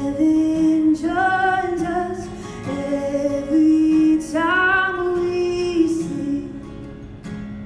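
Female voice singing a slow worship song over acoustic guitar, with long held notes.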